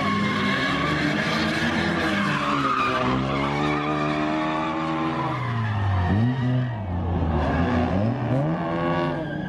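Car engines revving up and down with tyres screeching as cars spin donuts. The engine pitch sweeps down about halfway through, then rises and falls several times in quick swings near the end.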